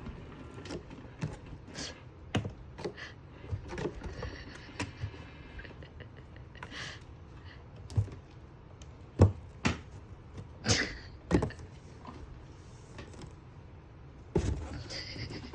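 Irregular knocks and clatters of a cat batting and pouncing on a toy, with the loudest knock about nine seconds in and a brief faint high ringing around four seconds in.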